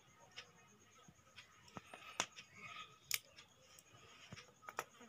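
Scattered light clicks and taps of small objects being handled on paper, including a metal nail clipper and a clear plastic clamshell pack. Two sharper clicks come about two and three seconds in, with a short plastic rustle between them.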